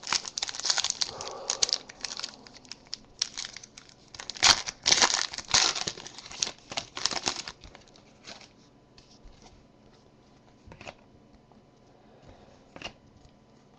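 Crinkling and rustling of trading-card packaging as cards are handled, dense for about the first seven seconds, then only a few scattered soft clicks and rustles.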